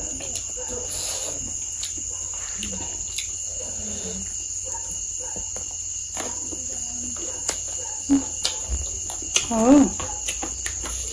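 Insects trilling steadily in a high, continuous chorus, with scattered small clicks.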